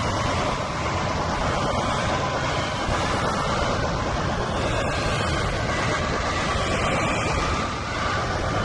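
Tornado sound effect: loud, steady rushing wind with a deep rumble underneath and a faint whistling tone running through it.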